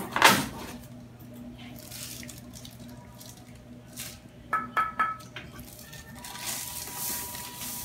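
Drill press parts being handled in their plastic packaging: a sharp knock right at the start, three quick metallic clinks with a short ring a little past the middle, and plastic rustling near the end.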